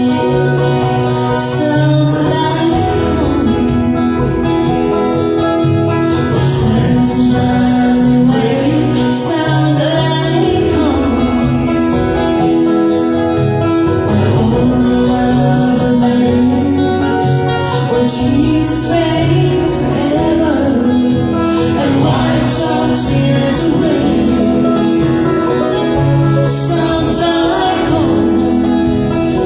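A country-bluegrass style song: singing over acoustic guitar and other plucked strings, a steady melody line held throughout.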